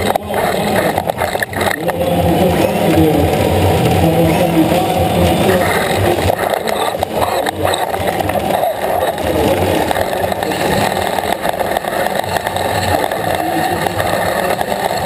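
Electric drive motors and gearboxes of an FRC competition robot running and rattling as the robot drives and turns, heard through a camera mounted on its frame, with a few sharp knocks in the first two seconds and again around seven seconds in.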